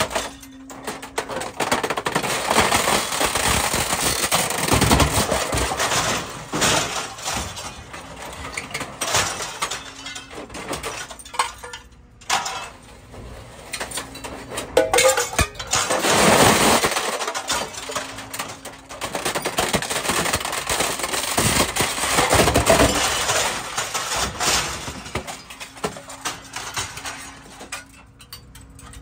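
Scrap sheet metal crumpling, cracking and clanking as it is compressed in the press box of a Copex shear baler, in repeated loud surges of crashing metal.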